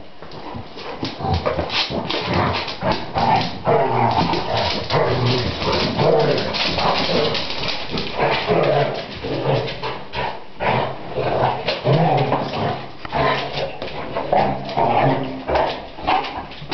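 Two basset hounds playing together, whining and barking again and again, with many short clicks and scuffles as they move about the floor.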